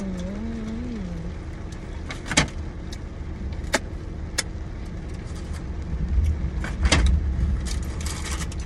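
A short wavering hum from the eater in the first second, then paper food wrapping crinkling with several sharp clicks and rustles as fried food is handled, over a low steady rumble in the car.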